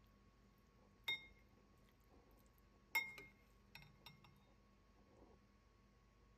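A metal spoon clinking against a ceramic serving bowl: two sharp, briefly ringing clinks about two seconds apart, the second the louder, then a couple of lighter taps.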